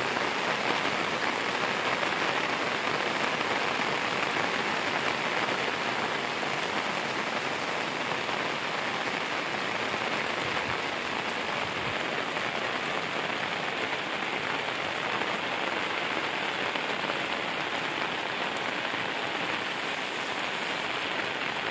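Steady heavy rain, falling on a plastic tarpaulin overhead and on muddy ground, an even hiss with no break.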